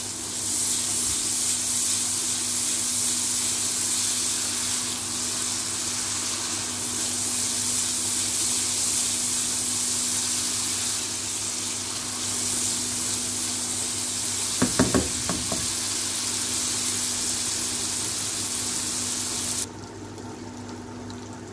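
Ginger-garlic paste and whole spices frying in hot oil in a wok, a steady sizzle as the raw paste is fried off. A few quick knocks come about two-thirds in, and the sizzle drops off suddenly near the end.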